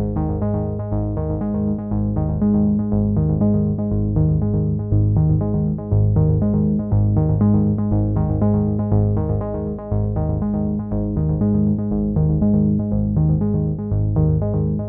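Background music: synthesizer keyboard notes repeating in a steady pattern over a held bass.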